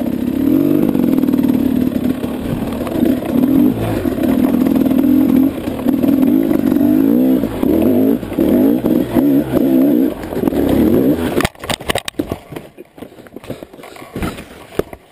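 KTM 300 two-stroke dirt bike engine revving hard under load on a rocky climb, its pitch rising and falling with the throttle, then cutting out suddenly near the end as the bike stalls. Scattered clattering and scraping knocks of the bike against rock follow.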